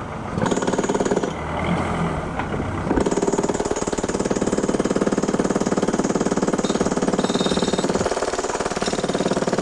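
Pneumatic tie tamper hammering rapidly as it packs ballast under a railroad tie. It gets louder about three seconds in.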